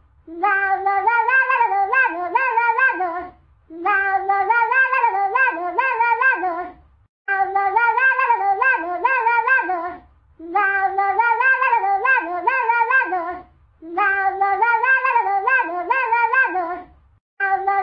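Cat-meow ringtone: pitched meows strung into a short tune. The phrase lasts about three seconds and repeats over and over with brief breaks.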